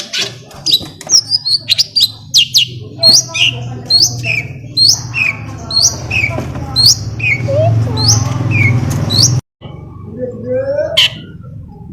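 Long-tailed shrike (cendet) song: a rapid series of sharp, high chirps, about two a second, over a low steady hum. Near the end the sound cuts out for an instant, then resumes with lower rising notes.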